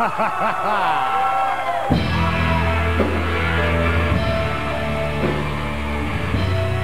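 Heavy rock music playing. Gliding tones open it, and a full band with low sustained notes and drums comes in suddenly about two seconds in.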